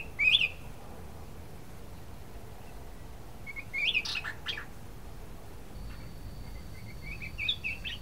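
Black-crested bulbul (cucak kuning) singing in short bursts: a brief rising phrase at the start, a longer, louder run of quick notes around the middle, and another quick phrase near the end.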